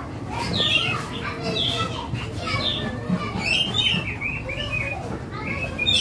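Caged songbirds chirping: short falling notes about once a second, with a quicker run of notes about three seconds in, over a low steady background rumble.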